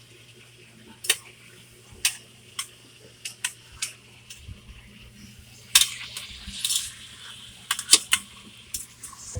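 Cooking utensil clinking and scraping against a pressure cooker pot while chicken is stirred, in irregular sharp knocks about once a second, two of the loudest close together near the end.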